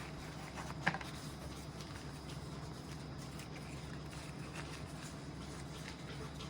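Faint handling of small camera accessories and their packaging: one sharp click about a second in and a few light rustles, over a steady low hum.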